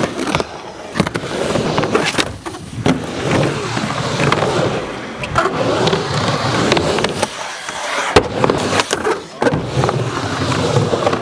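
Skateboard wheels rolling over a rough concrete bowl in a continuous rumble, with several sharp knocks of the board and trucks along the way.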